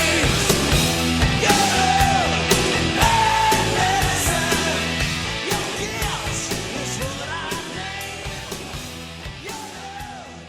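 Background rock song with a sung vocal over drums, fading out steadily through the second half.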